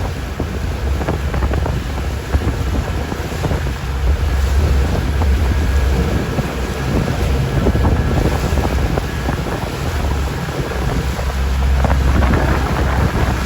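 Strong wind buffeting the microphone, a loud steady low rumble, over a wash of waves and moving water.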